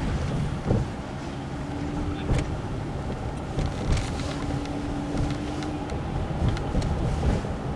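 Car interior road noise while driving: a steady low rumble with a few light clicks and a faint hum that comes and goes twice.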